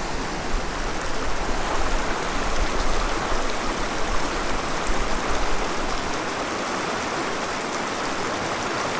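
Small mountain stream rushing over rocks in a white-water riffle: a steady wash of moving water.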